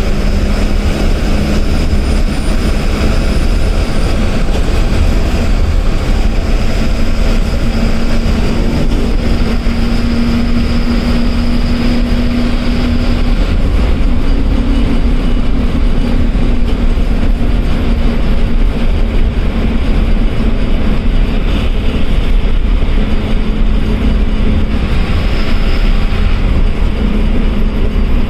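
KSRTC ordinary bus's diesel engine and road noise heard from inside the driver's cabin, running steadily at highway speed with a deep rumble. The engine hum rises a little in pitch partway through and settles back.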